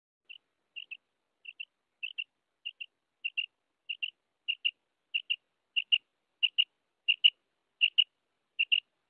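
Common quail calling: a run of about fourteen short, high double notes, a little under two a second, growing steadily louder.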